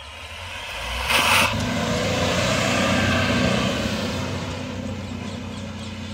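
Mahindra Bolero's three-cylinder diesel engine revving under load as the SUV spins its wheels through loose dry dirt. The sound swells as it comes close, with a brief loud rush of noise about a second in, then eases off as it pulls away.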